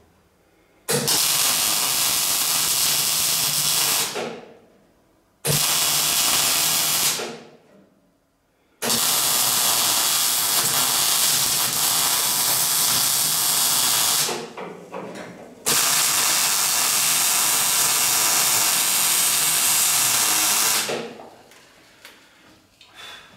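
MIG welder arc crackling as box-section steel is welded in, in four runs: the first starts about a second in, and the last two last about five seconds each. Each run starts abruptly and stops, with short quiet gaps between.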